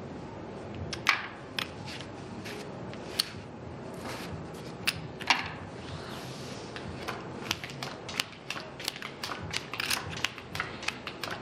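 Casino chips clicking together and playing cards being slid and dealt on a blackjack table's felt: a run of sharp, irregular clicks, coming faster in the last few seconds.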